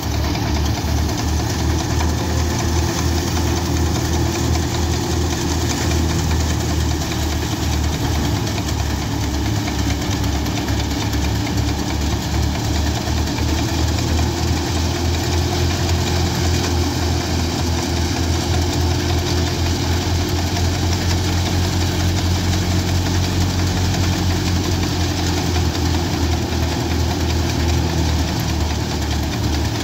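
Tractor diesel engine running steadily under load, driving a belt-driven wheat thresher through its pulley; a fast even throb from the engine with the constant whir and rush of the spinning thresher drum over it.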